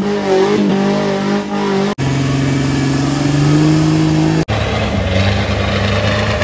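Off-road 4x4 engines running under load as they crawl through mud, in three short clips joined by abrupt cuts. In the first the engine pitch wavers up and down; in the middle one it climbs steadily as the engine revs up.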